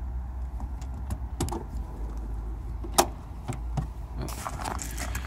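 Key jangling and clicking in the rear hatch lock of a 1981 Datsun 280ZX, with a single sharp latch click about three seconds in as the hatch releases, followed by a few lighter clicks and rustling as it is lifted.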